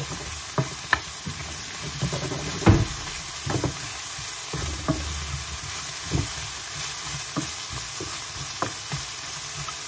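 Carrot strips sizzling in hot oil in a frying pan, stirred with a wooden spatula that knocks and scrapes against the pan about once a second, the loudest knock a little under three seconds in.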